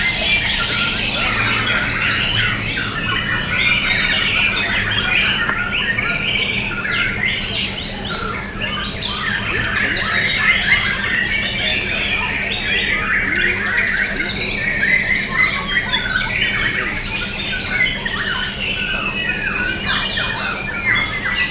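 White-rumped shama (murai batu) singing a continuous, varied song of whistles and chattering phrases, with other songbirds singing over it.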